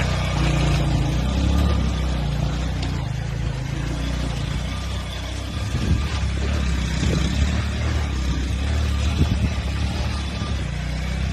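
Motorcycle engine running steadily on a moving motorbike, with wind rushing over the microphone. A few short low thumps come in the second half.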